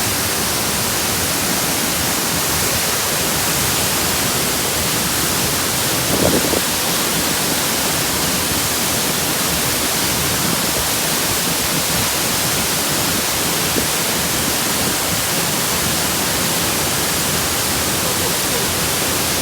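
Steady roar of the Shirafuji waterfall, an even wash of falling water with no change in level. A brief louder sound stands out about six seconds in.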